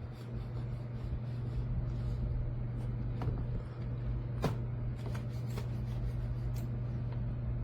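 A handful of short sharp clicks, scattered a second or so apart, as buttons or keys are pressed, over a steady low electrical hum.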